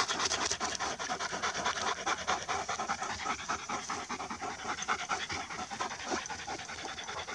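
A dog panting quickly and steadily, tired and hot after a chase through the woods.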